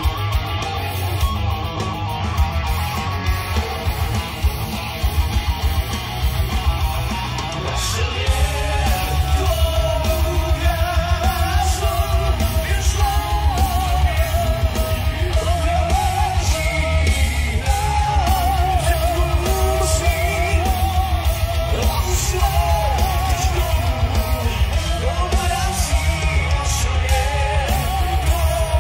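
Heavy metal band playing, with electric guitar, bass and drums, and a high sung vocal line entering about eight seconds in, when the music gets louder.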